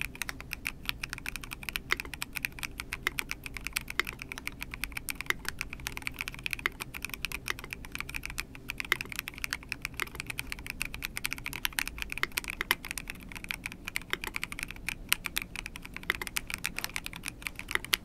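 Continuous fast typing on a Monstar Aqua 67 mechanical keyboard with a transparent housing: a dense, unbroken run of keystroke clacks.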